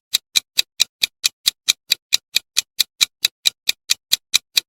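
Countdown-timer ticking sound effect: a steady run of sharp, evenly spaced clock ticks, about four and a half a second.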